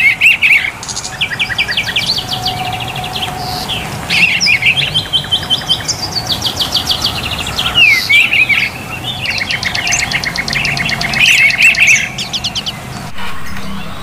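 A songbird singing a fast, varied song of rapid high trills and chirps, in several phrases with short pauses between them.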